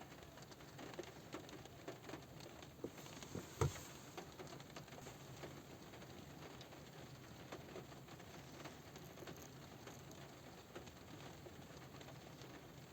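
Light rain pattering on a car roof: a steady scatter of small drop ticks, with one louder tap about three and a half seconds in.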